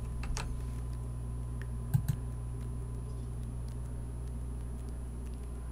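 Computer keyboard keystrokes in the first half second, then a pair of sharp clicks about two seconds in, over a steady low electrical hum.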